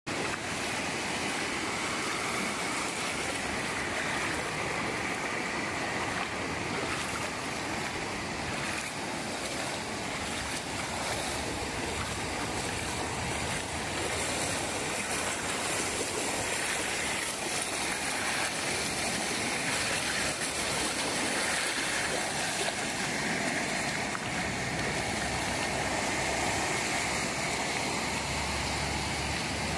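Small ocean waves breaking and washing up a sandy beach: a steady hiss of surf and foam that swells and eases gently.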